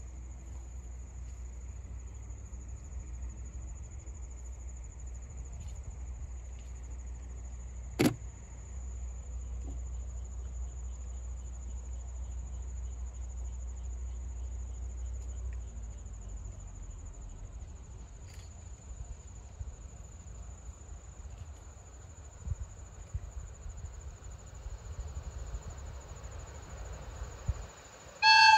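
Steady insect chirring over a low rumble, with one sharp click about a third of the way in. Near the end a loud locomotive whistle blast starts, a single pitched tone, from the approaching DD51 diesel locomotive leading the train.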